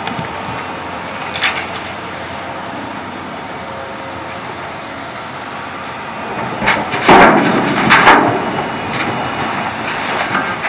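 Rock from the bucket of an electric-powered Hyundai R800LC-8 excavator crashing into the steel bed of a Terex TR70 haul truck, in two heavy crashes about a second apart past the middle, with smaller clatter after. A steady machine hum runs underneath.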